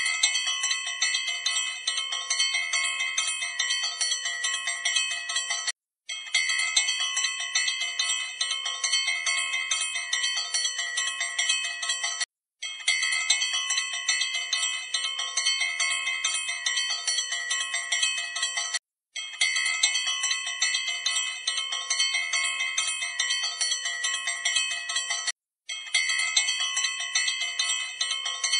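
Metal puja hand bell rung rapidly and without pause, a dense bright ringing. It is cut by brief silences about every six and a half seconds, where the same stretch starts over like a loop.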